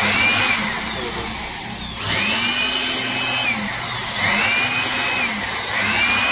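Handheld electric air blower with a 480 W, 13,000 rpm motor running, a rush of air over the motor's whine, its pitch rising, holding, then falling back about four times as it speeds up and slows down. It runs again now that its worn carbon brushes have been replaced.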